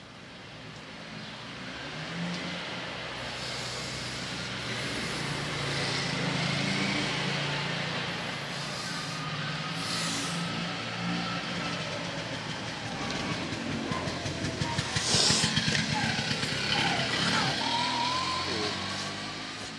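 City street traffic: motor vehicles running and passing with a steady low engine hum, swelling and fading, with a louder rush about fifteen seconds in.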